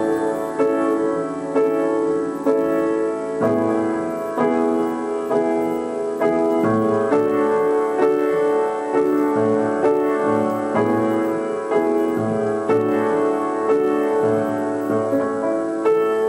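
Piano played slowly, with chords and single notes struck about once a second and left to ring into each other.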